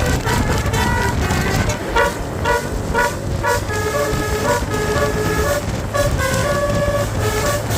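Basuri telolet horn on a tour bus playing a melody. Short notes follow one another quickly, several horn tones sounding together, over the low hum of the bus.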